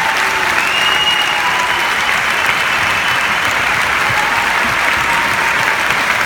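Large concert-hall audience applauding, dense and steady.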